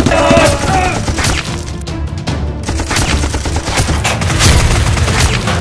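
Irregular shots of gunfire sound effects over loud background music.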